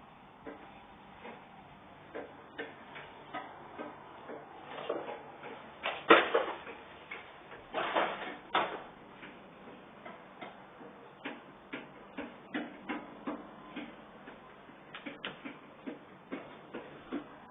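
Irregular light clicks and knocks, with a sharp louder knock about six seconds in and a short scraping, rustling stretch around eight seconds.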